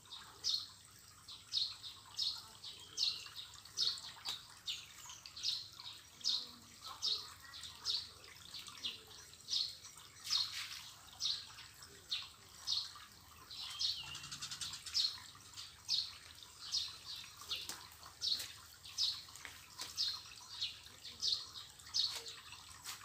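A bird calling over and over, a short high chirp about every two-thirds of a second in a steady, unbroken rhythm.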